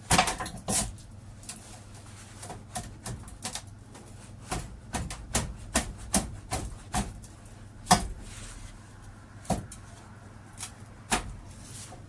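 Irregular sharp knocks and clicks of metal parts and hand tools being handled and set up on a workbench, the loudest just after the start and about eight seconds in, over a steady low hum.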